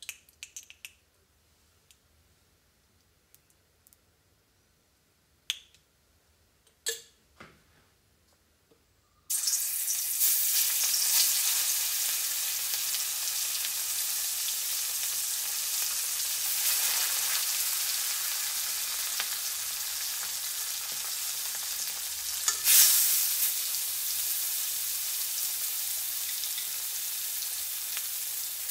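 A few faint clicks in near silence, then about nine seconds in, spice-marinated mullet goes into hot coconut oil in a wok and the oil starts sizzling loudly. The sizzling stays steady, with a louder flare about two-thirds of the way through as more fish is added.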